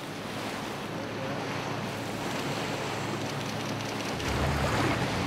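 Wind and sea water rushing around a small boat, with the steady low drone of its engine underneath; the rush swells louder about four seconds in.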